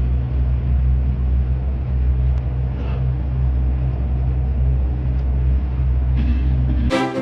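Tour boat's engine running with a steady low drone. Near the end it cuts off abruptly and orchestral music with brass comes in.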